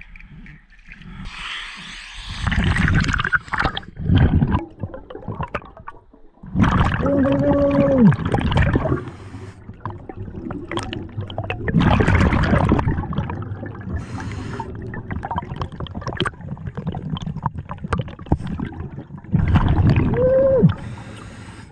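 Scuba diver breathing underwater through a regulator: a thin hiss on each inhale and a loud rush of bubbles on each exhale, repeating every few seconds. Two of the exhales carry a short honking tone.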